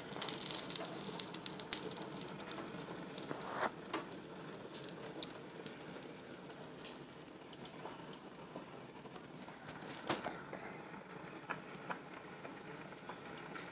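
Pot of spaghetti water heating on the stove just short of a full boil, with irregular crackling and ticking from forming bubbles over a faint hiss. The crackling is busiest at first and thins out, with a short cluster of louder clicks about ten seconds in.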